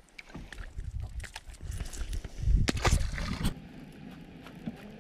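Wind rumble and handling noise on the microphone, with scattered clicks and knocks as a small bass is unhooked from a crankbait, and a louder rush of rumble about two and a half seconds in.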